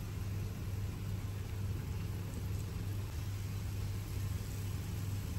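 A steady low machine hum that holds unchanged throughout.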